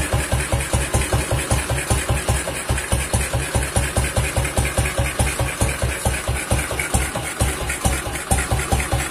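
Single-cylinder BSA motorcycle engine idling through its chrome exhaust: an even, slow beat of about five to six firing pulses a second that holds steady.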